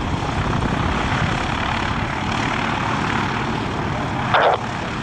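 Aircraft engine noise, a steady rush, with a brief louder burst about four and a half seconds in.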